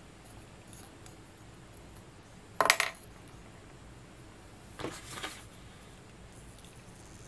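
Small hard clinks of mini Christmas ornament balls knocking together as they are handled: one louder clatter about two and a half seconds in and two lighter taps around five seconds.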